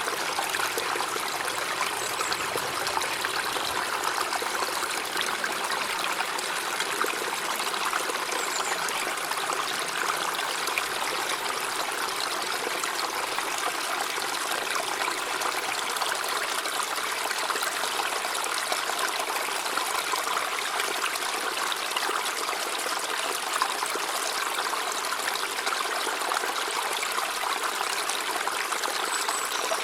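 River water flowing steadily: an even rush and trickle of water with no deep rumble.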